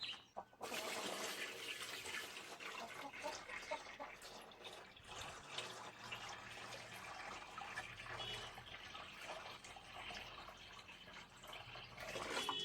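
Water running steadily into a chicken waterer as it is refilled, starting about half a second in.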